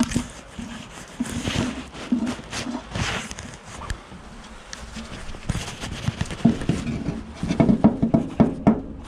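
A spoon scraping and knocking against a metal pot as porridge is scooped out, with a run of quick knocks near the end.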